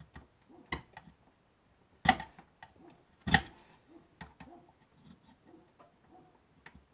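Handling noise from a UPS circuit board and its plastic case being moved about on a table: scattered light clicks and taps, with two louder sharp knocks about two and three seconds in.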